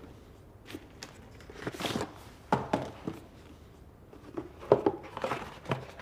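A dozen or so irregularly spaced knocks and soft thuds in a small room, such as footsteps and objects being set down.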